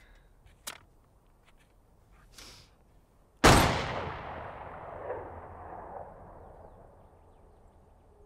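A single pistol shot about three and a half seconds in, sharp and loud, followed by a long echo that dies away over about three seconds. A short click comes earlier, under a second in.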